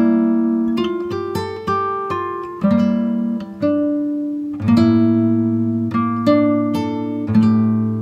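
Background music: a plucked guitar playing chords, a new chord struck about once a second and ringing out between strikes.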